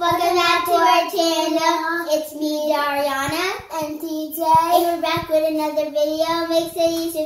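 A young child singing in long held notes, with short breaks between phrases and one note sliding upward about halfway through.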